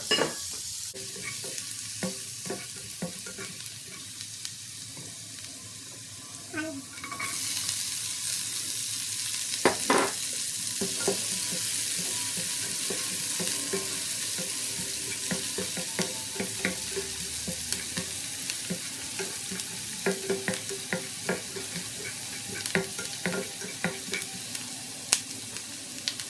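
Garlic and onion sizzling as they sauté in melted margarine in a frying pan, with a spatula scraping and clicking against the pan as it stirs. The sizzle grows suddenly louder about seven seconds in.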